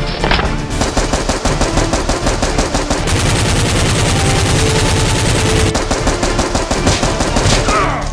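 Automatic-gunfire sound effect: rapid, continuous strings of shots dubbed over a toy foam-dart blaster being fired.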